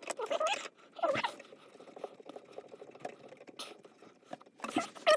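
Short bits of a man's voice in the first second and again near the end. In between come faint small clicks and scrapes of hands working on a plastic and metal water-line fitting as the bidet supply hose is connected.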